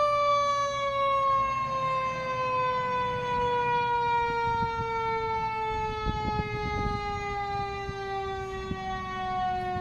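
A mechanical siren winding down, its pitch falling slowly and steadily the whole time, with a low engine rumble underneath that swells about six to seven seconds in.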